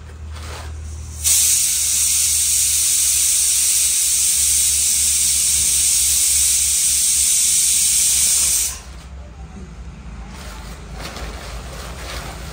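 A loud, steady, high-pitched hiss that starts suddenly about a second in and cuts off sharply about seven seconds later.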